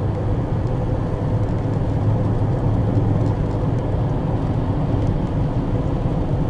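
A car driving along a paved road, heard from inside the cabin: a steady low hum of engine and tyre noise.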